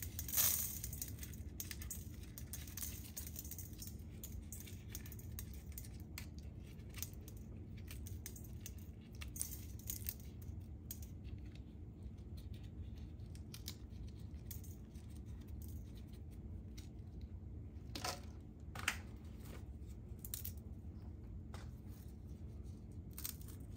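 Dried chili pods being torn open and destemmed by hand: the brittle skins crackle and snap in scattered small clicks, with a few louder ones at the start and about eighteen and nineteen seconds in. A steady low hum runs underneath.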